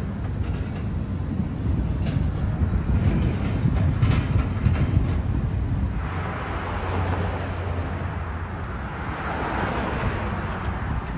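Steady low outdoor rumble from a building demolition site. About halfway through, a hissing rush joins in and swells near the end.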